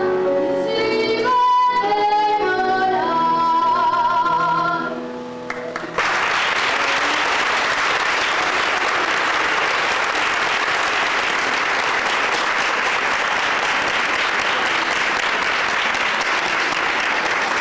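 A boy soloist and children's choir sing the closing phrase of a villancico, ending on a held high note with vibrato that fades out. About six seconds in, the audience breaks into applause that carries on steadily.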